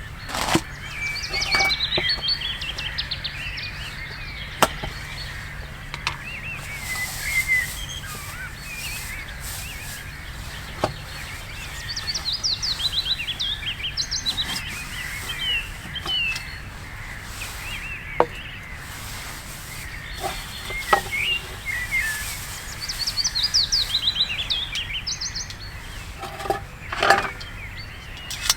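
Small songbirds singing: a fast trilled phrase comes about every eleven seconds among scattered chirps, with a few sharp clicks and knocks.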